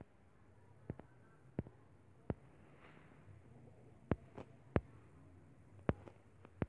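Faint, sharp taps of a fingertip on a phone touchscreen, about nine at uneven intervals, over a low steady hum.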